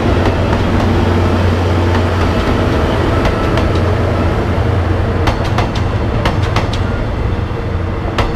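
Diesel-hydraulic locomotive DHL 9001 running, its engine a steady low drone under heavy rumbling, with sharp clicks of wheels over rail joints starting about five seconds in.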